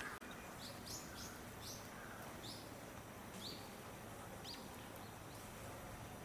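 Small bird chirping faintly: about seven short, high chirps over the first four seconds or so, then they stop.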